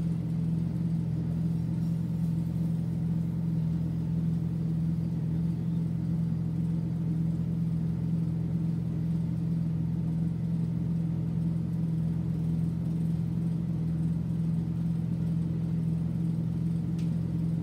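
A steady low electrical hum, with no other sound standing out above it.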